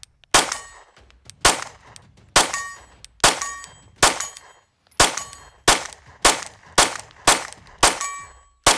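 A 9mm Glock 19 pistol fitted with a Herrington Arms HC9C 3.0 compensator is fired about a dozen times in quick succession. The shots come roughly one a second at first and quicken to about two a second toward the end. A short metallic ring follows many of the shots.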